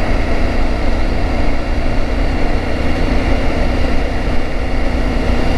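Steady wind rush and motorcycle engine hum at cruising speed, heard from inside a helmet with the visor open.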